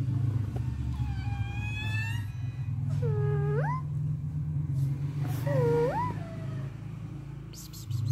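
A domestic cat meowing three times, about one, three and five and a half seconds in; the last two meows start low and end in a sharp rise in pitch. A steady low hum runs underneath.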